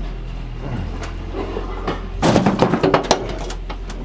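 An engine running steadily at idle, with a burst of clattering knocks lasting about a second, about two seconds in.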